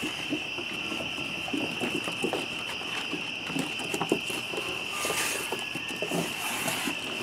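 A steady high trill of crickets, with irregular light taps and scuffs of Shetland sheepdog puppies moving about on wooden deck boards and two brief rustling swishes near the end.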